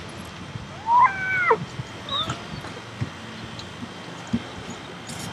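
A cat meows once, about a second in: a single drawn-out meow that rises a little, holds, then drops away at the end.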